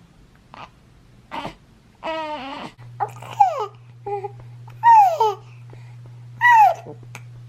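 Baby cooing: a string of short, high-pitched coos and squeals, several gliding down in pitch, with one longer drawn-out coo about two seconds in.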